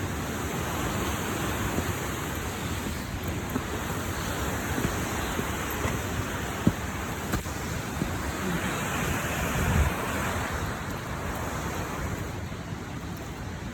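Waterfall: a steady rush of falling water, with scattered low thumps on the microphone.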